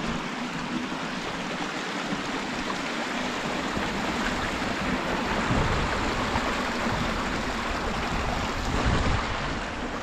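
A mountain stream rushing steadily.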